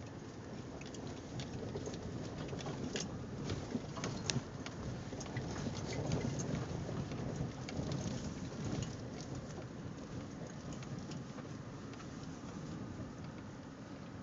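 Inside a vehicle's cabin: tyres rolling slowly over a stony, leaf-covered dirt trail, a steady rumble with many scattered clicks and pops of gravel. It grows louder in the middle and eases off towards the end.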